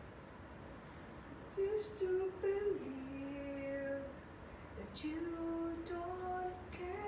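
A woman singing a slow melody in long, held notes.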